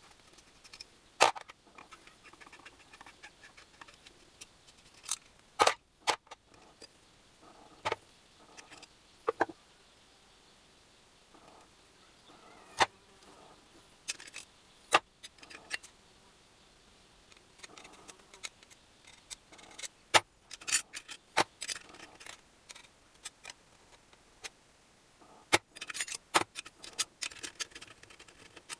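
Metal tools and small engine parts being handled on a workbench: scattered sharp clicks and clinks, with short rattling clusters around the middle and near the end.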